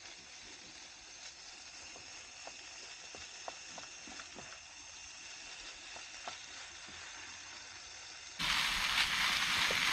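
Egg noodles frying in a pan on a portable gas stove: a steady sizzle with occasional light taps of a wooden spatula as they are stirred, becoming much louder and brighter about eight and a half seconds in.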